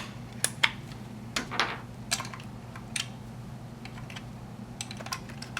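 Irregular sharp plastic clicks and taps as batteries are fitted into an opened smoke detector's battery compartment, over a low steady hum.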